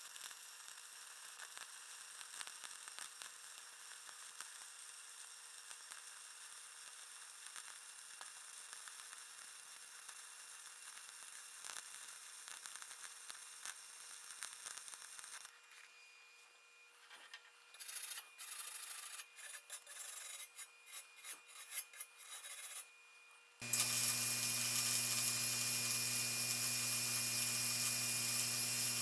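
Flux-core wire welder arc crackling as it welds the groove between two rusty steel car rims: a steady sizzle for about fifteen seconds, then short stop-start bursts, then a louder continuous run with a low hum underneath from about twenty-four seconds in.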